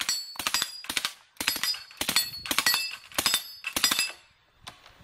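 Suppressed submachine gun firing about seven short full-auto bursts at steel plates, the plates ringing with a high tone after the hits. The firing stops about four seconds in.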